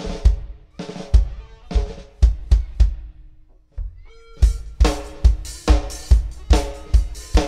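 Drum kit played loud through a large PA sound system during a sound check. A few scattered kick and snare hits come first, then a short pause with a held tone. From about halfway a steady beat of kick drum, snare and cymbals sets in.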